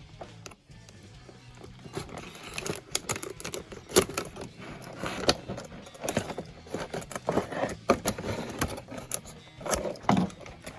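Toy packaging being opened by hand: irregular plastic and cardboard clicks, rattles and rustling as the figure is worked out of its box.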